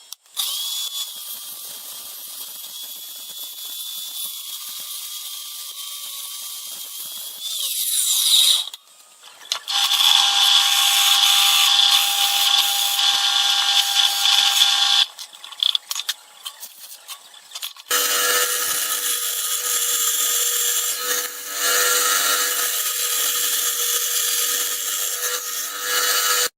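Small electric motor whining steadily in three separate runs, with a rising whine as it speeds up near the end of the first run and brief stops in between.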